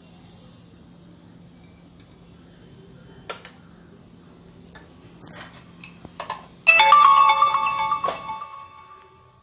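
A few light clicks and taps of kitchen utensils. About seven seconds in comes a sudden loud bell-like metallic ringing of several tones, which fades over about two seconds, like a steel vessel struck and left ringing.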